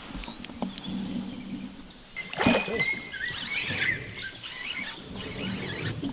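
Squeaky bird chirps and short whistles over a low steady hum, with a brief noisy rush about two and a half seconds in.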